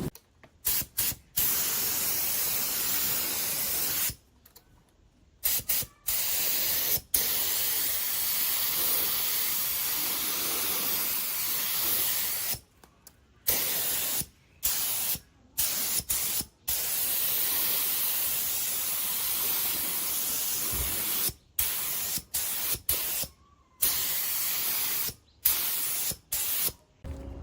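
Compressed-air spray gun hissing in long passes, cutting off sharply and starting again many times as the trigger is released and pulled.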